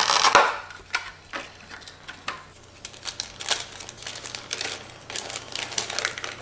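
Plastic packaging crinkling and clicking as it is handled: a clear plastic tray and a zip-top specimen bag being pulled open and lifted out. Irregular small rustles and ticks, loudest in the first half second.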